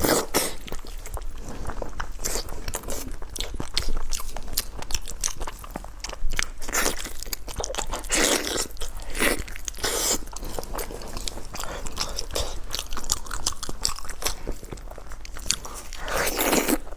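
Close-miked eating: a person biting and chewing food, with dense small clicking mouth sounds and a few louder crunching bites partway through and near the end.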